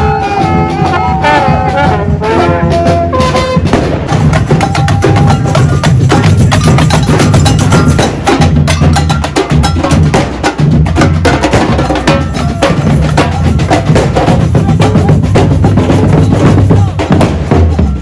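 A marching drum band playing loud, fast, continuous drumming, with a short tune on a pitched instrument over it in the first few seconds.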